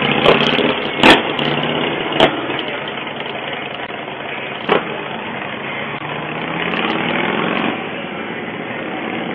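Several motorcycle engines running and pulling away, heard through a doorbell camera's microphone, with a few sharp cracks in the first seconds and one more about halfway through.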